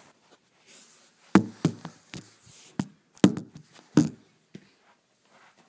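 Irregular knocks and taps of a phone being handled and bumped against cloth, about nine of them, starting a little over a second in.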